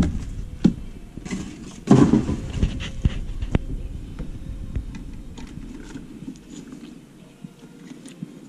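Handling noise: scattered clicks and knocks as a small box and the hand-held camera are moved about, with a heavier knock about two seconds in, then quieter rustling.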